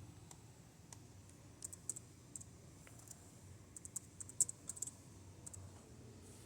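Light keystrokes on a laptop keyboard: a scattered run of short taps, thickest in the middle of the stretch.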